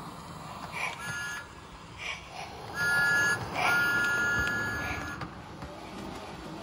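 Electronic whistle sound effect of a Lionel O scale Thomas the Tank Engine, a two-note toot: a faint short blast, then a loud short blast and a longer one that fades away. It sounds over the low running rumble of the model train on the track.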